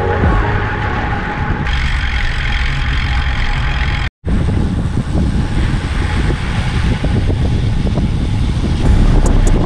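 Steady road and traffic noise heard while riding a bicycle in a city: a low rumble with vehicles running nearby. There is a brief dropout to silence about four seconds in, and a run of sharp ticks near the end.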